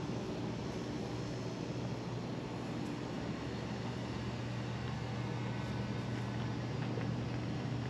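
A steady low mechanical hum under an even wash of outdoor background noise, unchanging throughout.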